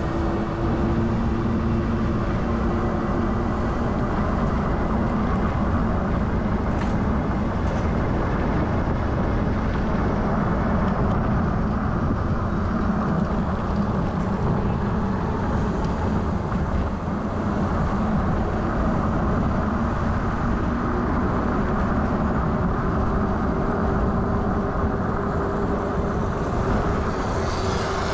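Wind and road noise rushing over an action camera's microphone while riding an electric bike at speed, with a steady low hum from the e-bike's motor underneath.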